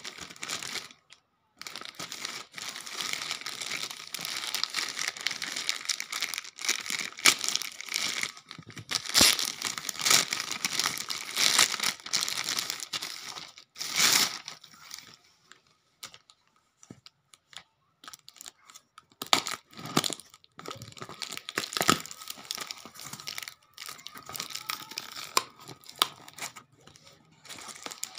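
Black plastic courier mailer bags crinkling and tearing as they are handled and ripped open, in irregular spurts with a few short pauses. Near the end, packing tape is cut and torn on a cardboard box.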